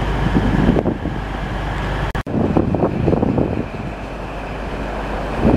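Urban traffic noise with a road vehicle running, broken by an abrupt cut about two seconds in; after the cut the noise turns rougher and uneven.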